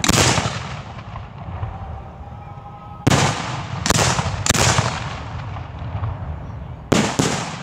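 Aerial firework shells bursting overhead: six sharp booms, one right at the start, three at about three, four and four and a half seconds in, and two close together near the end, each trailing off in an echoing rumble.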